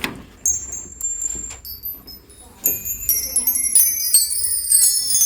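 Small high-pitched metal chimes ringing: a few single notes struck in the first half, then from about halfway many notes overlapping as the chimes ring together.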